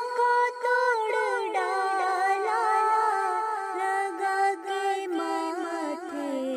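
Solo voice singing an Urdu naat, drawing out long ornamented notes that slide and waver between pitches.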